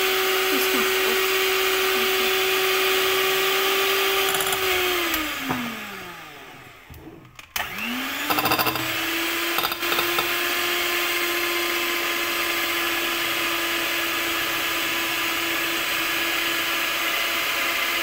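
Electric hand mixer running steadily as its beaters whip eggs into a foamy cake batter. About five seconds in its whine falls away as the motor winds down and nearly stops. After a short rattle it spins back up and runs steadily again.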